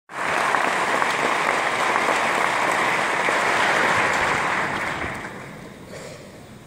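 Audience applauding, the clapping dying away from about five seconds in.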